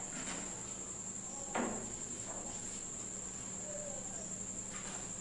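Quiet room tone between spoken phrases: a steady high-pitched tone with a low hum beneath it, and a brief soft sound about a second and a half in.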